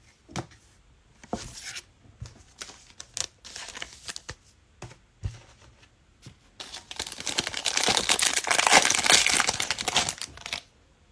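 Plastic trading-card pack wrapper being handled with light rustles and clicks, then torn open in one long rip over about four seconds near the end.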